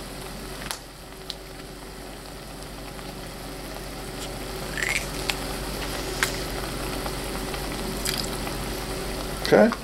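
Barbecue sauce base of onion, garlic, spices, vinegar and sugar sizzling in a hot pot, slowly growing louder, with a few faint clicks.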